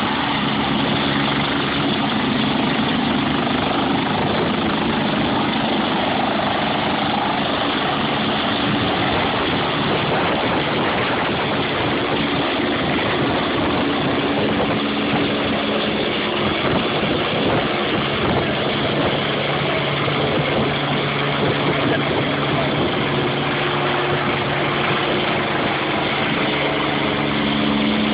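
Medical helicopter's turbine engine and rotor running loudly and steadily at close range for takeoff, with its tones shifting partway through.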